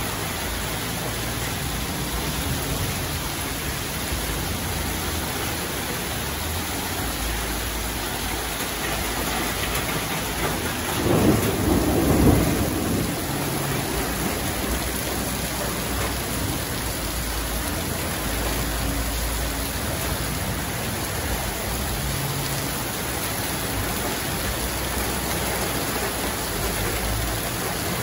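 Heavy rain pouring steadily in a thunderstorm, with one roll of thunder swelling up about eleven seconds in and dying away over a couple of seconds.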